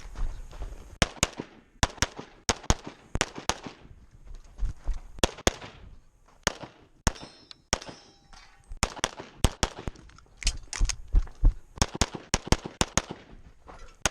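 Rapid pistol fire from a 2011 in .40 S&W: dozens of shots, mostly in quick pairs, in strings broken by short pauses.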